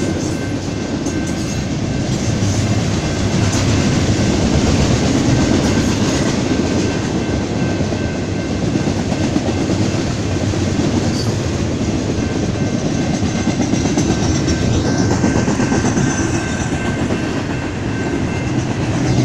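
BNSF double-stack intermodal freight train rolling past: a steady loud rumble and clatter of steel wheels on the rails, with a faint steady whine above it.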